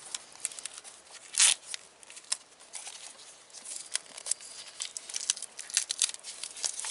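Layers of adhesive tape being peeled off a wrapped wiring bundle by hand, crackling and crinkling in short irregular rips, with one louder rip about one and a half seconds in.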